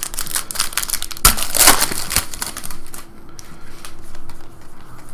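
Baseball trading cards being flicked through by hand: a quick run of card snaps and slides, loudest about a second and a half in, thinning to a few scattered clicks.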